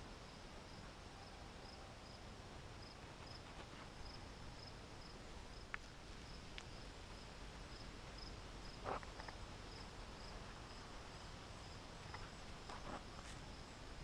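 Faint, steady chirping of a cricket, about two short high chirps a second, with a few soft clicks and rustles, the loudest about nine seconds in.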